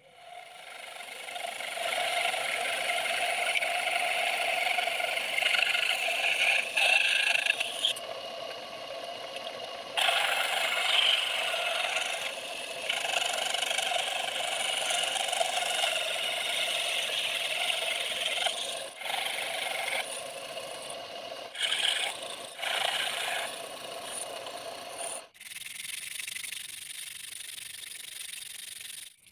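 Small DC-motor mini saw from a mini grinder set running and cutting through the plastic bodies of disposable gas lighters: a dense grinding hiss over a steady motor hum, broken off several times. Near the end it gives way to a thinner steady hiss of sandpaper rubbed over the cut plastic.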